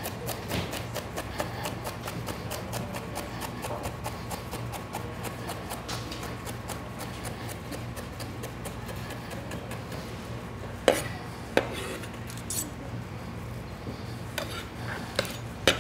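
Chef's knife dicing celery on a wooden cutting board: a rapid, even tapping of the blade on the board, about four strokes a second. About eleven seconds in come two louder knocks, then a few scattered clicks near the end.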